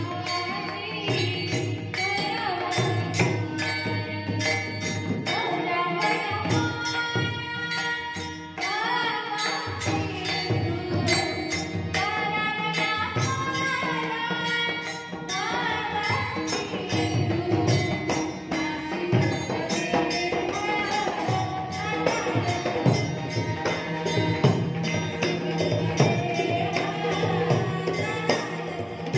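Warkari devotional song (bhajan): a single voice singing an ornamented, gliding melody, with small hand cymbals (taal) striking a steady beat.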